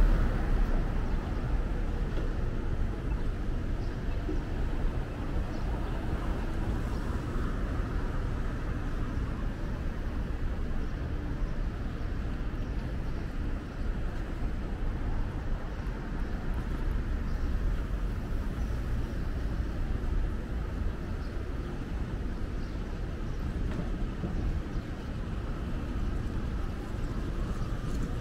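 City street ambience: a steady wash of traffic rumble and general street noise.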